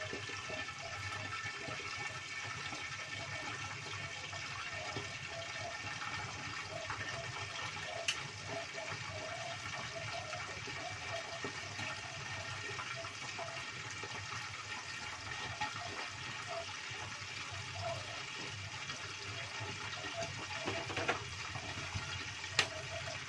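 Tilapia deep-frying in hot oil in a lidded wok: a steady sizzle with a couple of sharp pops of spattering oil.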